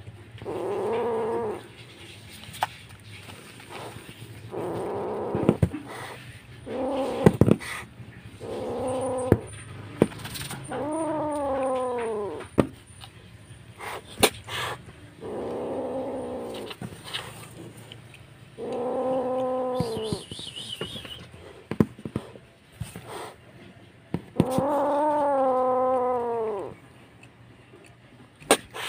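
A wild kitten crying out over and over in drawn-out, insistent meows, about eight calls of a second or two each, some rising and falling in pitch. A few short sharp clicks fall between the calls.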